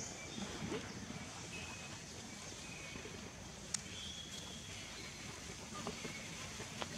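Quiet outdoor ambience: a steady high-pitched hiss with a few short, faint high calls, and one sharp click a little past the middle.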